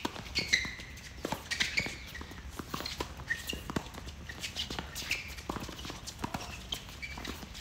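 Doubles tennis rally on a hard court: sharp pops of the ball off the racquets and the ball bouncing, with the players' footsteps and short high shoe squeaks in between.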